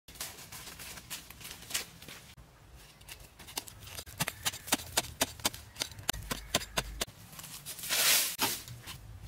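Footsteps crunching on dry leaf litter, then a hand tool chopping into hard, dry soil in quick strokes about three a second, followed near the end by a louder scraping rush of loosened earth.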